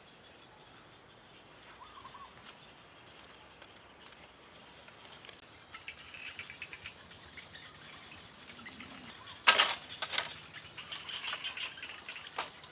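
Light rustling and clicking of bamboo poles and ties being handled, with one sharp knock about nine and a half seconds in and a smaller one near the end. Faint short bird chirps sit behind it.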